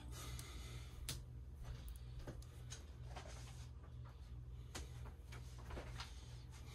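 Faint, scattered light clicks and taps, about a dozen at uneven intervals, over a low steady hum: small objects being handled on a work surface.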